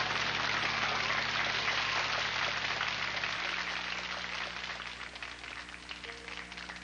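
Audience applauding at the end of a song, with the last held note of the music under it for the first few seconds. The clapping fades away toward the end.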